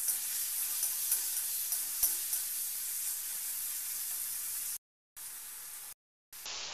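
Chopped tomatoes and onion sizzling steadily in hot oil in a kadhai, stirred with a spatula, with one sharp tap about two seconds in. The sound cuts out briefly twice near the end.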